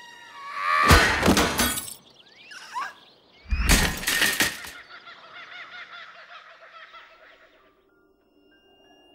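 Glass shattering with a heavy crash about a second in, then a second heavy crash and shatter about three and a half seconds in, followed by glass fragments tinkling and settling until they fade out.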